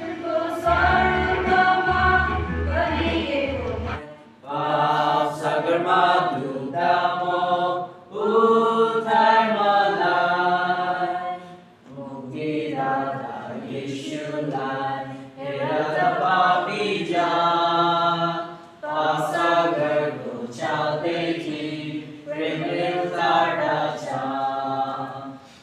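A group of women singing a Nepali hymn together in phrases with short pauses between them. A low instrumental backing stops about four seconds in, and the singing goes on unaccompanied.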